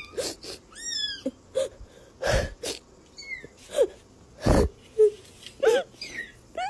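Kitten mewing in a string of short, squeaky cries that slide up and down in pitch, with two louder rough sounds, one about two seconds in and another about four and a half seconds in.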